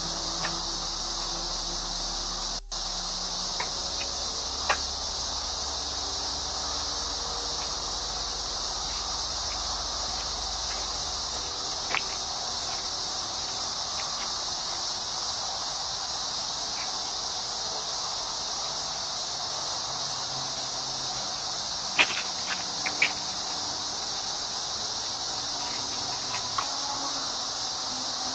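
Steady high-pitched hiss of outdoor ambience through a doorbell camera's microphone, with a few light clicks and knocks, the loudest two about two-thirds of the way in.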